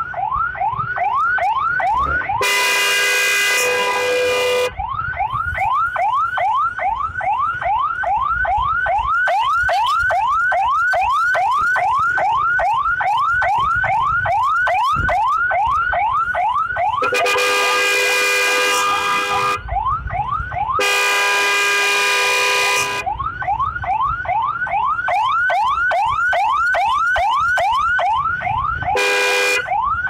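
Ambulance siren yelping close by, a rapid run of rising sweeps about three a second. It is cut four times by long steady horn blasts, the longest about two seconds each.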